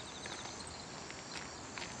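Insects trilling with a steady high-pitched song, with a few faint clicks near the end.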